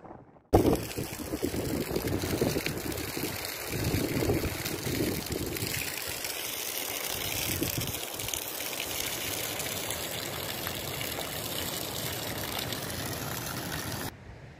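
Water gushing from an outdoor shower pipe and pouring onto the ground. It is a steady rushing hiss that starts suddenly about half a second in and cuts off near the end.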